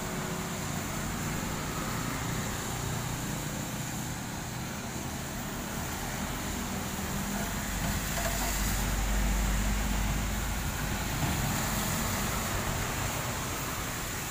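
Road traffic on a wet road, with steady tyre noise. A heavily loaded dump truck's diesel engine is heard running as the truck passes close by, loudest about nine seconds in.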